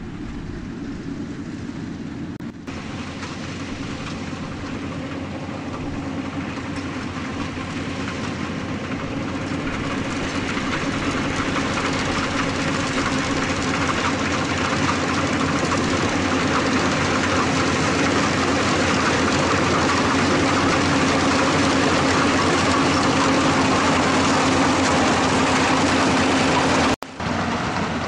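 Yanmar AW82GV rice combine harvester's diesel engine running under load as it cuts rice: a steady engine hum under a broad mechanical rush, growing louder as the machine comes closer. Near the end the sound breaks off abruptly and returns quieter, with the machine farther away.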